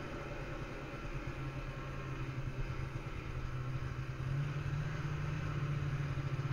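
Snowmobile engine running as the machine rides through deep snow, a steady low drone that grows louder in two steps as the throttle opens.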